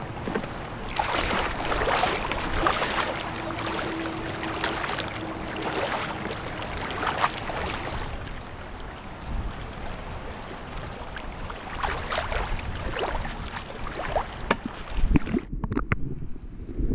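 Shallow seawater sloshing and splashing around people wading, with wind on the microphone. About a second and a half before the end the sound turns abruptly muffled and low, heard through a submerged camera underwater.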